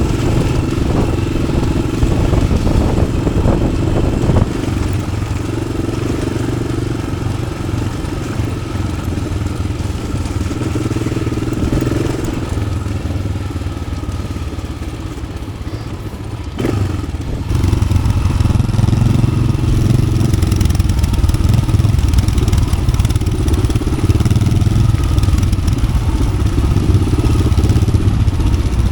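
Yamaha XT600's single-cylinder four-stroke engine running under way through an aftermarket Arrow exhaust. About halfway it eases off for a few seconds, a single knock sounds, and then it pulls harder and louder.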